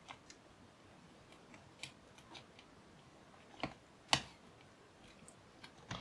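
Faint scattered clicks and light taps of a plastic spudger and fingertips working a fan cable into place inside an open laptop, with the two sharpest clicks about three and a half and four seconds in.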